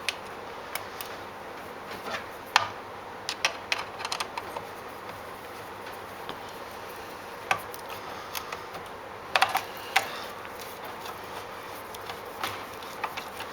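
Scattered light clicks and taps of a screwdriver and screw against the metal guard plate of a compound mitre saw as the guard screw is lined up and fitted, with a cluster about three to four seconds in and another near ten seconds in.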